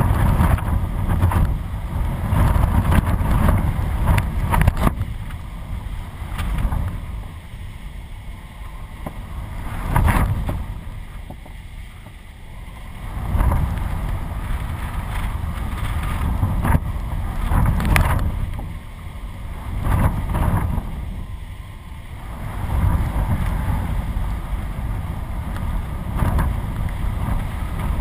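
Loud gusty wind buffeting the microphone of a camera mounted on a kite, surging and easing every few seconds in 20-40 knot gusts. A few sharp knocks come through, about 5, 10 and 18 seconds in.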